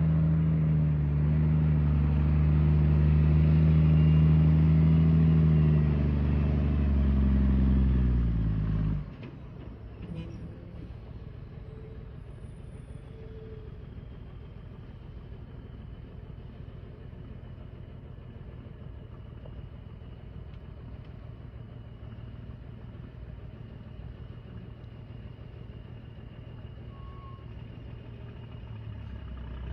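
Logging truck's diesel engine running loudly under load for about nine seconds, its pitch dropping slightly near the end, then cutting abruptly to a much quieter, steady low rumble.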